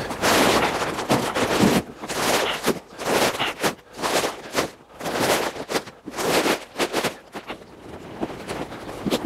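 Plastic sacks of wood pellets being handled and stacked: a run of rustling, scraping thumps, about one a second.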